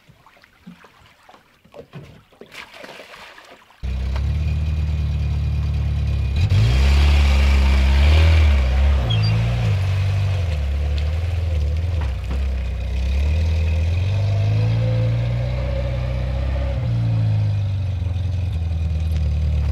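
An engine starts running abruptly about four seconds in and revs up and down under load, with a louder rushing stretch a couple of seconds later.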